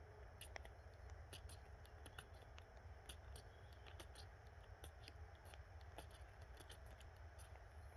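Near silence with faint, irregular small ticks and crackles scattered throughout, over a low steady hum.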